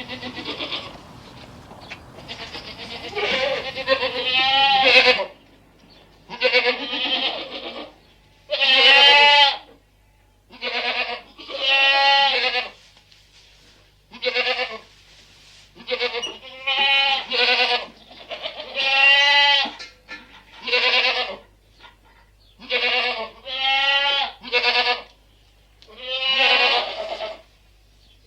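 Bleating livestock: a series of about fifteen quavering bleats, some overlapping near the start, then single calls every second or two.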